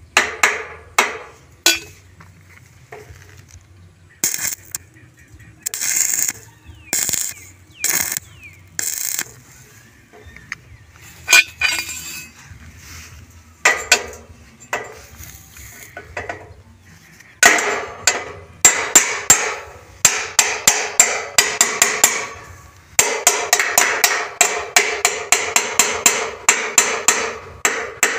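Hammer striking steel tubing with a ringing clank, first in single blows and then in quick runs of about three to four taps a second. A few short hissing bursts come in between.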